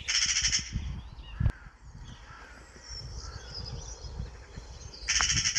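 Two harsh, rasping corvid calls, one at the start and one near the end, with faint songbird chirps between them over a low rumble.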